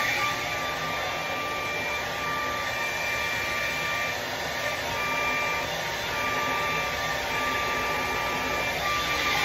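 Hand-held hair dryer blowing steadily, with a thin high whine from its motor that drops out briefly a few times.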